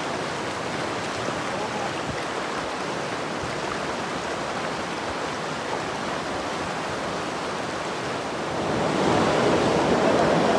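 Shallow river water rushing over rock cascades, a steady rush that grows louder about three-quarters of the way through.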